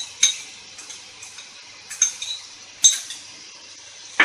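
Four sharp, ringing clinks of kitchenware against a cooking pot, spread a second or so apart, over a faint hiss, as sauce is added to the pot of chicken and vegetables.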